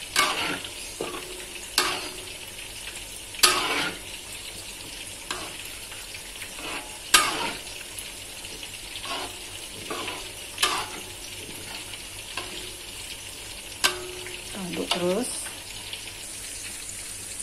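Spatula stirring a thick rice-flour sauce in a metal wok, with irregular sharp scrapes and knocks against the pan over a steady low hiss. The sauce is kept stirring so the rice flour does not go lumpy.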